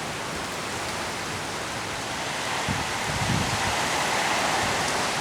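Rain falling steadily in strong wind, growing a little louder, with low gusts of wind on the microphone about three seconds in.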